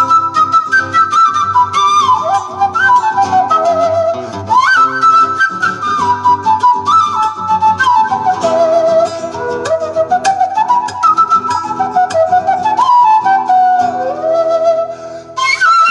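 Flute playing a melody with sliding, swooping moves between notes, over a guitar's plucked accompaniment.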